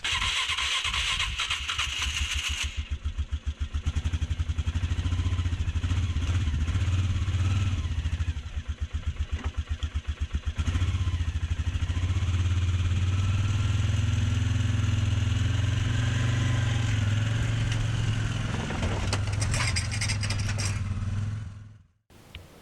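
ATV (quad) engine running as it is ridden, with a steady low drone and a rhythmic throb in the middle stretch and a hiss over the first few seconds. The engine sound cuts off suddenly near the end.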